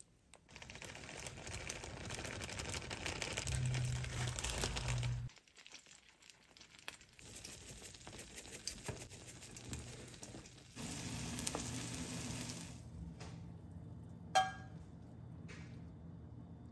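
Beaten eggs sizzling and crackling in a nonstick frying pan, in several stretches broken by short gaps. A single sharp clink comes near the end.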